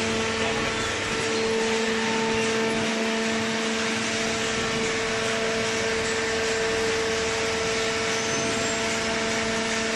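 Hydraulic waste paper baler running: a steady machine hum with a constant whine over a hiss, without rising or falling.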